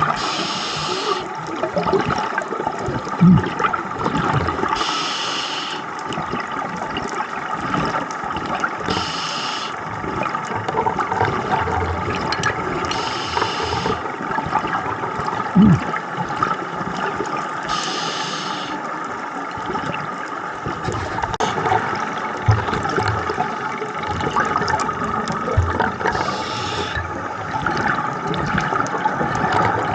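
Underwater sound of a scuba diver's breathing: exhaled bubbles rushing from the regulator in a short burst about every four seconds, over a steady watery rush.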